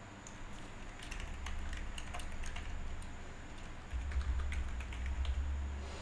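Typing on a computer keyboard: a quick run of keystroke clicks with a low rumble underneath, starting about a second in and stopping shortly before the end.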